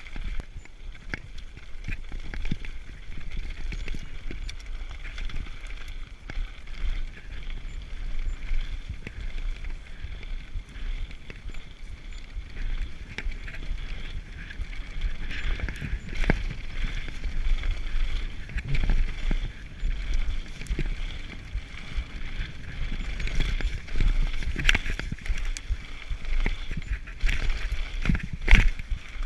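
Mountain bike riding fast down a dirt singletrack: tyre noise with frequent sharp rattles and knocks as the bike goes over rough ground, and wind rumbling on the handlebar camera's microphone.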